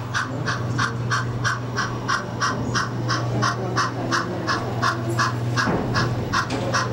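Sound-fitted model narrow-gauge steam locomotive chuffing steadily at a slow running speed, about three chuffs a second, over a steady low hum.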